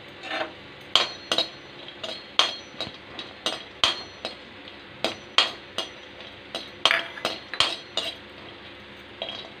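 Metal ladle scraping and clinking against a metal kadai while almond slivers are stirred as they dry-roast: irregular sharp clinks and scrapes, one or two a second.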